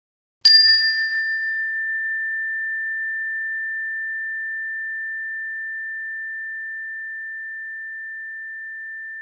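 Tone bar, a metal resonator bar on a wooden block, struck once with a mallet about half a second in, then ringing like a bell: one long, clear, high tone that fades slowly over about nine seconds, a brighter overtone dying away within the first second.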